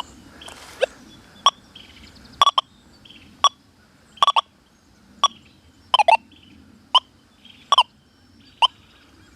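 Metal detector giving short, sharp target beeps, about one a second and sometimes doubled, as the coil is swept back and forth over a small gold ring.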